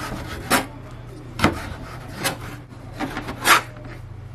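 Kitchen knife slicing an ají amarillo pepper into strips on a plastic cutting board: about five separate knocks of the blade on the board, roughly a second apart, over a low steady hum.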